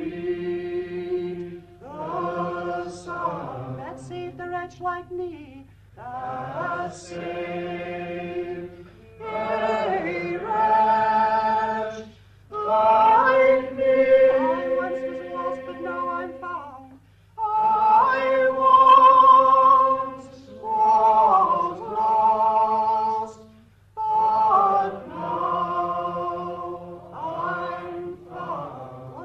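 A woman singing a slow unaccompanied folk song, in phrases of a few seconds with short breaths between them and long held notes with vibrato. A steady low hum from the old recording lies underneath.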